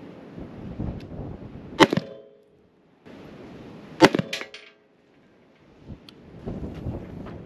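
Two shots from a Maxim Defense PDX short-barrelled AR pistol in 7.62x39, about two seconds apart, each sharp crack followed by a brief ringing.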